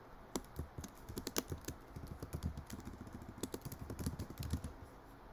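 Typing on a computer keyboard: a run of quick, irregular keystrokes that stops shortly before the end.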